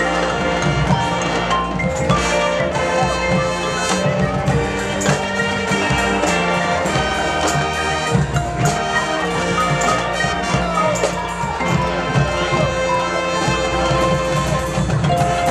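High school marching band playing, with brass holding chords over steady drumming.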